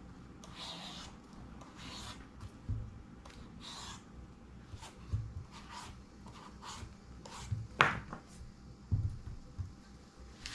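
Kitchen knife slicing into a hard, unripe green papaya: irregular rasping, scraping strokes of the blade through the firm flesh, with a few knocks, the loudest about eight seconds in.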